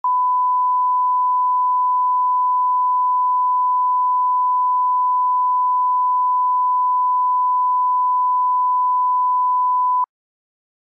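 1 kHz line-up test tone, the reference tone that accompanies colour bars: one steady pure beep lasting about ten seconds, then cutting off suddenly.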